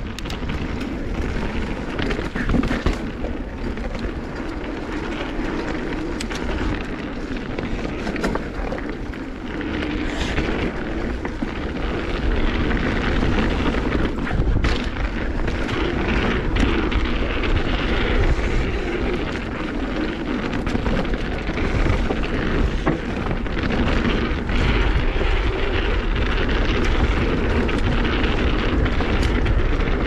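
A mountain bike rolling fast down a dirt trail: wind rushing over the microphone and a steady rumble from the tyres and frame, with a few sharp knocks from bumps.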